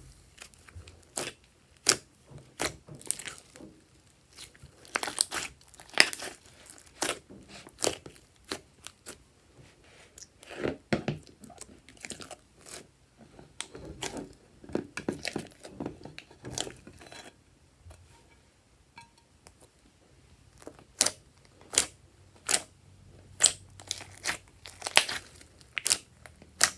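Hands kneading, stretching and pressing foamy slime, giving irregular sharp crackles, pops and sticky tearing sounds. There is a quieter pause about two-thirds of the way through.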